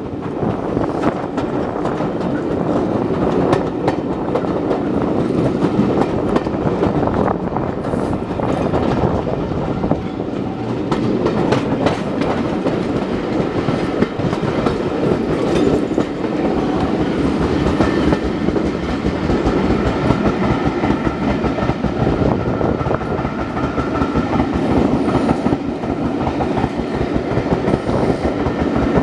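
Passenger coaches running along the track at speed, wheels clicking over the rail joints in an irregular rhythm. Wind rushes past the microphone, which is held out of the carriage window, and covers most of the distant steam locomotive's sound.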